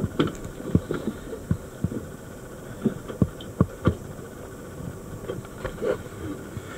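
About a dozen irregular dull thumps and knocks as divers in scuba gear and fins move about the deck of a small dive boat, over a low steady hum.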